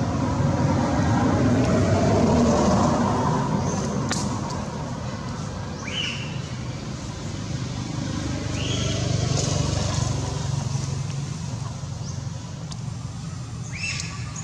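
Outdoor traffic noise: vehicles passing, swelling twice, with several short high rising chirps from an animal over the top.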